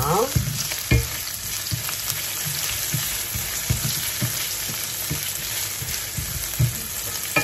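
Sliced mushrooms frying in butter and oil in an enamelled cast-iron pan, a steady sizzling hiss. A wooden spatula stirs them, knocking and scraping against the pan now and then, with a louder knock about a second in.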